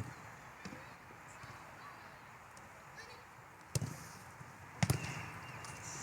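Two sharp thuds of a football being kicked, about a second apart, over faint background voices.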